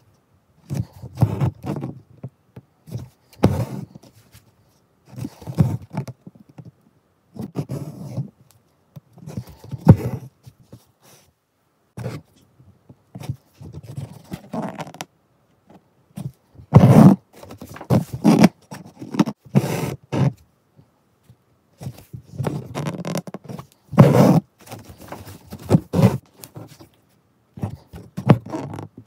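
Embroidery thread being pulled through fabric while working chain stitch: a scraping rasp each time the needle passes and the thread is drawn taut, in irregular strokes a second or two apart with silent gaps between.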